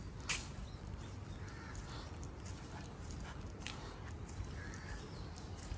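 Faint, irregular footsteps on a hard surface over a low rumble of handheld-camera handling noise, as someone walks along.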